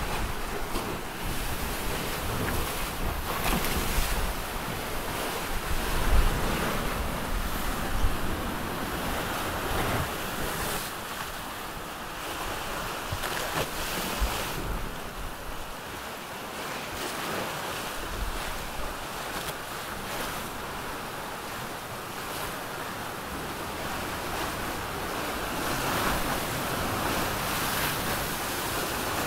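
Open-ocean waves and water rushing along a sailing trimaran's hulls, with wind buffeting the microphone in gusts that are strongest in the first several seconds.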